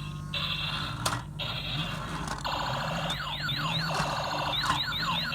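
Electronic toy sound effect: groups of quick, falling siren-like chirps with buzzy stretches between them, starting about halfway through, over a steady low hum.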